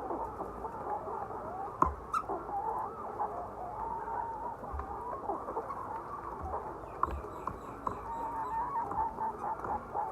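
A flock of laying hens clucking and calling together, many overlapping voices at once. A sharp click or knock sounds about two seconds in.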